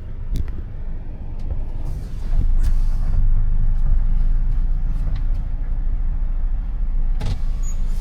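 Low engine rumble of traffic heard from inside a car cabin, growing louder about two seconds in, with a sharp click near the end.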